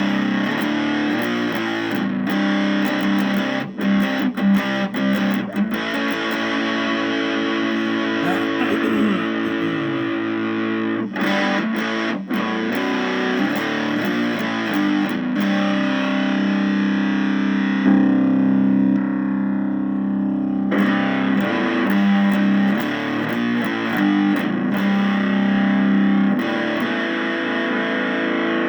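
Electric guitar played through a breadboarded two-transistor Electro-Harmonix Muff Fuzz circuit built with 2N5088 transistors, giving a distorted fuzz tone. Sustained notes and chords are struck anew every few seconds, with brief breaks between them.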